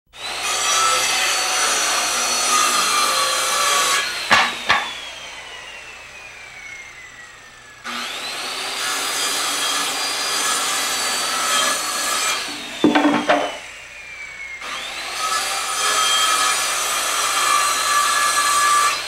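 Handheld circular saw cutting through a wooden board three times: each time the motor spins up with a quick rising whine, the blade runs through the wood for about four seconds, and then the motor winds down with a long falling whine. Sharp wooden knocks follow the first two cuts as the cut-off pieces drop.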